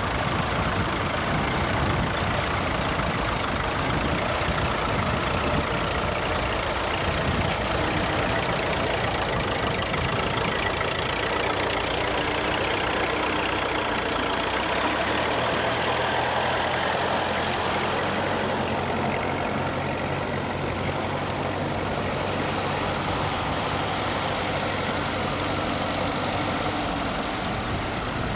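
Vintage tractor engine running steadily, with a low, even engine note that settles in about halfway through.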